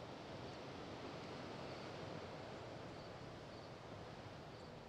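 Faint, steady outdoor ambience by the lakeshore: a soft even hiss with faint high ticks now and then, dipping slightly toward the end.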